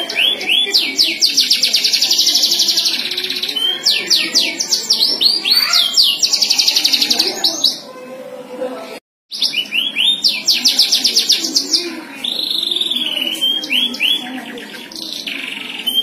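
Domestic canary singing: long, fast trills and rolls mixed with rising and falling whistled notes. The song cuts out completely for a split second about nine seconds in.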